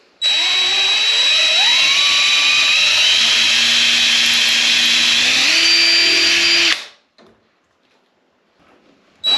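Cordless drill boring a handle hole through a cabinet-hardware jig's guide bushing into a wooden drawer front. The motor whine rises over the first couple of seconds, holds steady, steps up once near the end of the run and stops about seven seconds in. The drill starts again just before the end.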